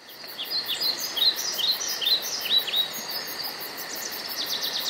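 Birds chirping: a run of short, quick downward chirps, several a second, over a steady fast high-pitched pulsing. Near the end the chirps give way to a buzzy trill.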